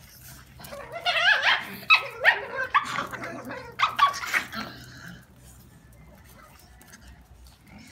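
Small shaggy dogs play-fighting, giving a quick run of high yips and barks that starts about a second in and dies down after about five seconds.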